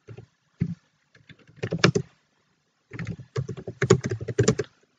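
Computer keyboard being typed on: quick runs of keystrokes in several bursts, with short pauses between them.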